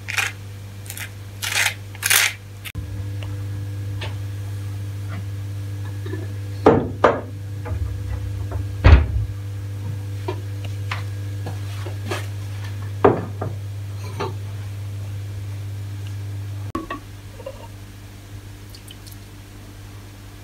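A knife scraping butter across slices of bread a few times, then a steady low hum that comes on about three seconds in, with the knocks and clinks of pots and utensils over it. The hum cuts off with a knock near the end.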